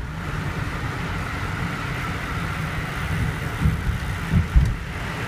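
Steady low rumble and tyre noise of a moving car, heard from inside the cabin. A few short gusts of wind buffet the microphone between about three and a half and four and a half seconds in.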